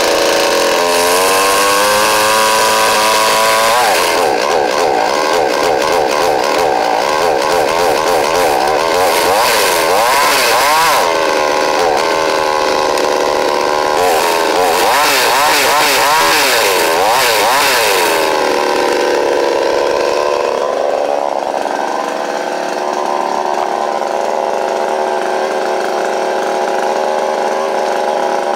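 Brand-new 52cc two-stroke Chinese Stihl-clone chainsaw running fast just after starting. Its revs climb for the first few seconds, swing up and down repeatedly, then drop to a steady idle about twenty seconds in.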